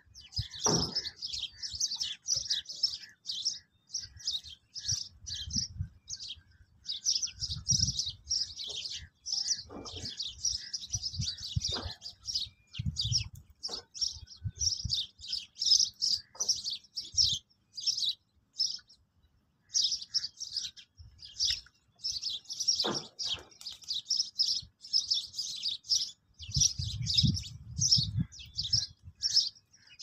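A flock of small birds chirping continuously in quick, short, high-pitched notes, with intermittent low rumbling underneath.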